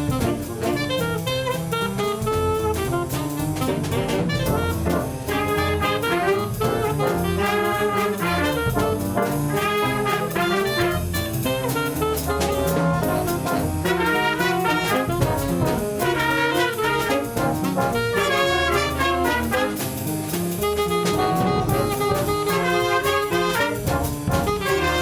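Instrumental jazz with brass (trumpet, trombone, saxophone) over a drum kit, no singing.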